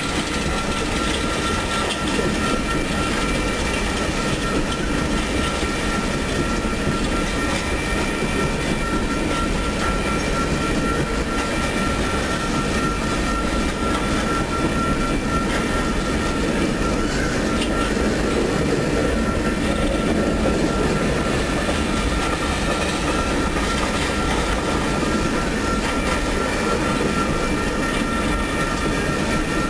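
Empty coal train's gondola cars rolling past at steady speed: a continuous rumble and rattle of wheels on rail, with a thin steady high-pitched whine running through it.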